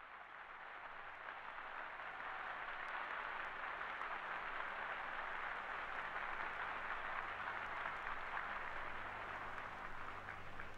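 Sustained applause from a large hall audience, heard on an old archival recording. It swells over the first few seconds and then holds steady, with a low steady hum underneath.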